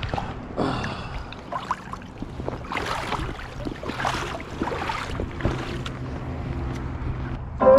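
Footsteps about once a second along a fast, high creek, with running water and wind on the microphone throughout. Music starts right at the end.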